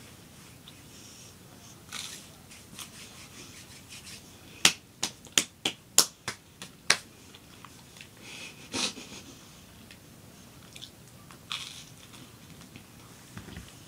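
Toast being eaten close to the microphone, with scattered crunchy bites and chewing. Halfway through comes a quick run of about seven sharp clicks, about three a second, louder than the eating.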